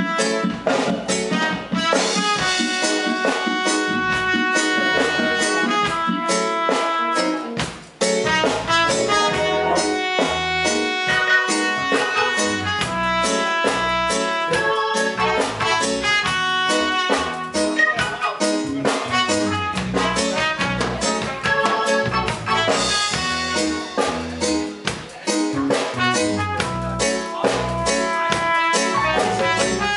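Live reggae band playing an instrumental passage with drum kit and melodic instruments, with a brief break about eight seconds in.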